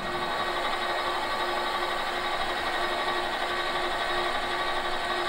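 Small metal lathe running steadily, its motor giving a constant even hum with a steady tone.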